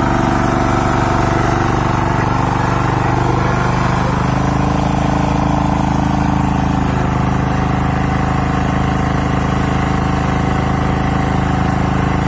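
Four-stroke petrol engine of a power weeder running steadily, its note shifting slightly a few seconds in and again about halfway through.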